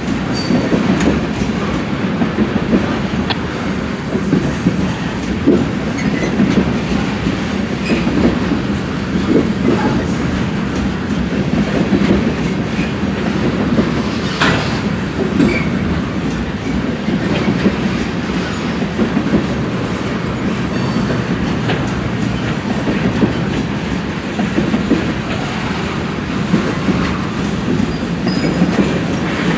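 Freight train's loaded container well cars rolling steadily past at close range: a continuous rumble of steel wheels on rail, clickety-clack over the rail joints, and a few brief high wheel squeals.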